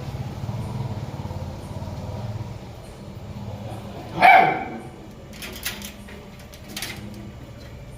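A dog barks once, loudly, about four seconds in, the bark dropping in pitch at its end. A low steady rumble runs underneath and fades after two or three seconds.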